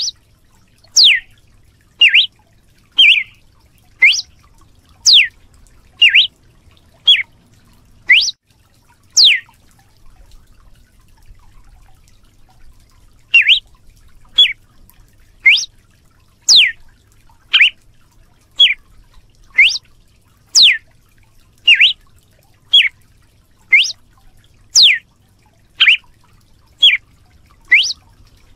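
Red-cowled cardinal (galo-de-campina) giving sharp, whip-like single notes, about one a second, each a quick pitch sweep. The notes break off for a few seconds about ten seconds in, then resume at the same pace.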